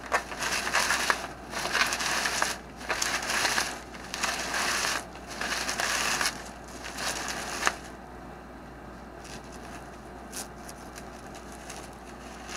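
Plastic bubble wrap being crinkled and pulled apart by hand, crackling in bursts for the first seven or eight seconds, then quieter with a few small clicks near the end.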